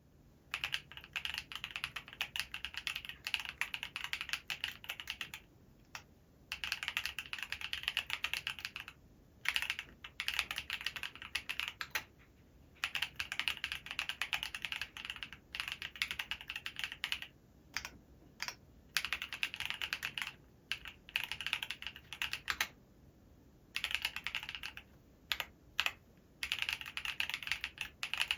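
Typing on a Cary Works Revo-happy HHKB-layout mechanical keyboard built with Sillyworks Hyacinth V2 switches, a POM plate and Gateron stabilizers. Fast runs of keystrokes lasting a second or two alternate with short pauses and a few single key presses.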